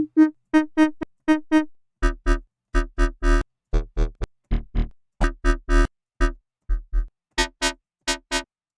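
Serum software synth bass patch, an early draft of a growl bass, played as a rhythmic run of short, clipped notes that each cut off sharply. From about two seconds in, a deep sub layer sounds under most of the notes.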